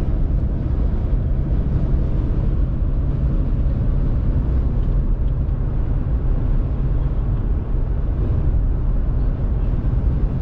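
Steady low rumble of road and engine noise heard inside a moving truck's cab, with no change in level throughout.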